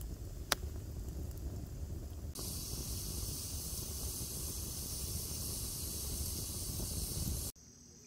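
Wood campfire burning: a low, steady rumble with one sharp crackle about half a second in. About two seconds in, a steady high hiss joins it, and both cut off suddenly near the end.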